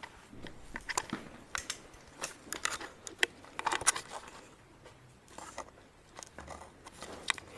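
Dogs playing on a tiled floor: irregular clicks and scuffles of paws and claws on the tile.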